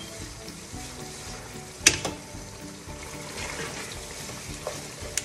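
Tomato, onion and spice base sizzling in oil in a pot while a spatula stirs it, with one sharp knock of the utensil against the pot about two seconds in. Soft background music underneath.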